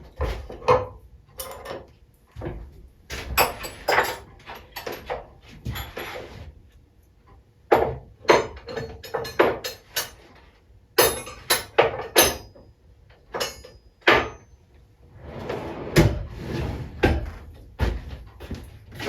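Irregular clinks, clicks and knocks of hand tools and small metal engine parts being handled and set down on a workbench while fitting spacers and shims.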